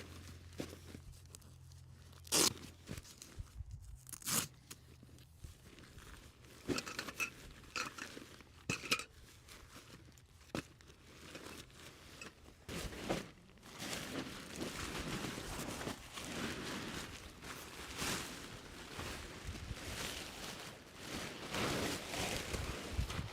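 Crinkling and rustling handling noises with scattered sharp clicks and knocks, turning into denser, steadier rustling about halfway through.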